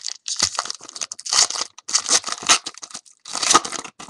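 A trading-card pack wrapper being torn open and crinkled by hand, in a series of irregular rustling tears and crackles.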